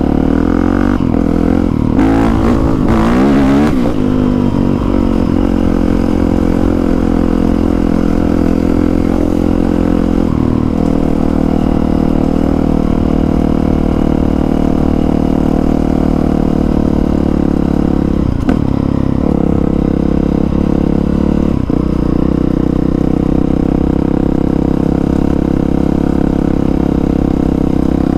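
Honda CRF450R's single-cylinder four-stroke engine running as the bike is ridden, revving up and down in the first few seconds, then holding a steady pitch. A couple of brief knocks are heard in the second half.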